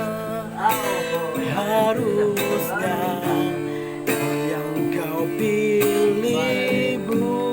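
A song: strummed acoustic guitar under a melodic line of gliding, wavering notes, most likely a singing voice.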